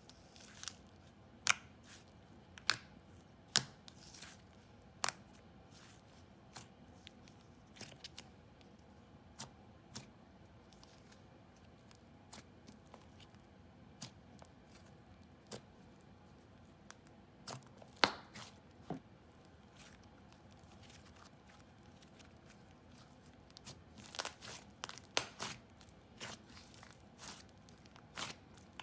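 Hands playing with a soft, fluffy butter slime, giving faint, scattered sticky pops and crackles at irregular moments, with a denser run of pops near the end.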